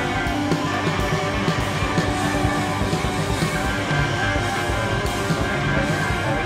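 A four-piece band playing loud, dense psychedelic jazz-rock: drum kit with cymbal crashes, saxophone, electric guitar and Rhodes, organ and synthesizer keyboards, all at once without a break.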